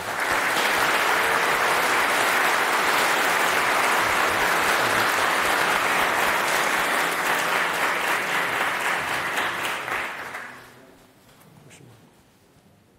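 Audience applauding steadily, dying away about ten and a half seconds in.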